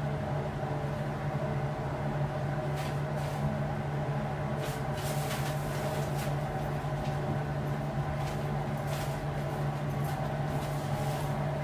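Steady low electrical-machinery hum of room equipment, with a few faint light clicks and knocks now and then.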